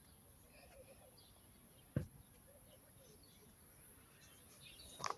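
Faint outdoor ambience with a steady high hiss and a few faint bird chirps. A sharp click comes about two seconds in, and another click near the end.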